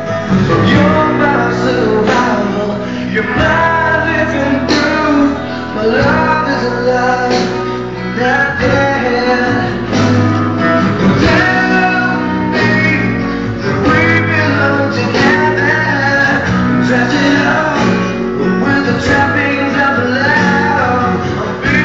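Music: a song with singing over a steady bass line.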